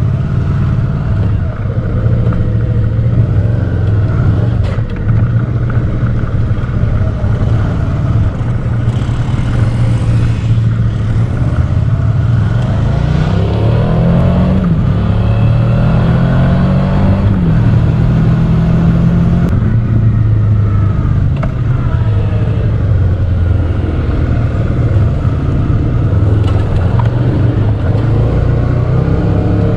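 Dual-sport motorcycle engine running under way on a trail ride, the throttle opening and closing so the engine note rises and falls several times about midway.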